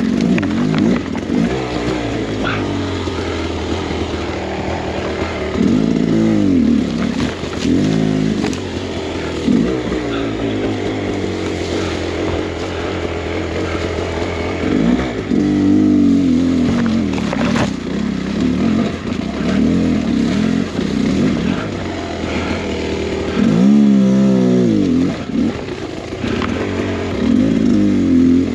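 Beta X-Trainer 300 two-stroke dirt bike engine revving up and down in repeated bursts of throttle, its pitch rising and falling every second or few. A few sharp knocks are heard along with it.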